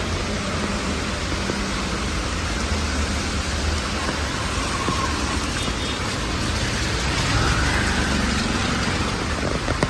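Steady hiss of rain mixed with road traffic on a wet street, swelling briefly as a vehicle passes near the end.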